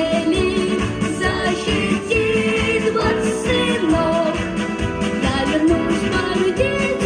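Pop song sung solo over a backing track with a steady beat, the voice gliding between held notes.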